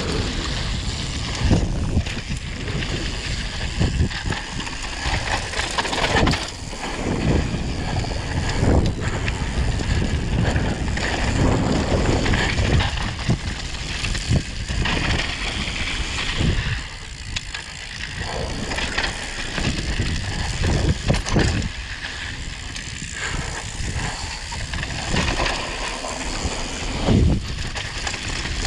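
A mountain bike riding fast down a bumpy dirt trail: continuous tyre and wind noise on the microphone, broken by frequent knocks as the bike hits bumps and ruts.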